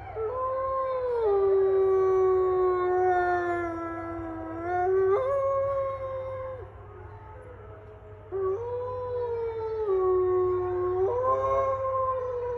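A wolfdog howling: two long howls with a pause of about two seconds between them. Each settles on a low held note, then steps up to a higher held note before trailing off.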